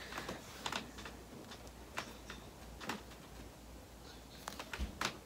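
Scattered light clicks and taps of small objects being handled, a few single ones about a second apart and then a quick cluster near the end.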